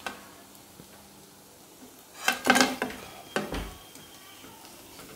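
A steel slotted spoon clattering and scraping against a steel kadai as fried corn pakodas are scooped out of the oil. There is one sharp click at the start, a loud cluster of metal knocks a little past the middle, and a last knock shortly after.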